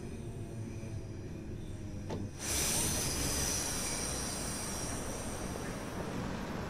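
Class 314 electric multiple unit: a steady hum with faint held tones, then about two seconds in a sudden rush of hissing noise that carries on and slowly eases.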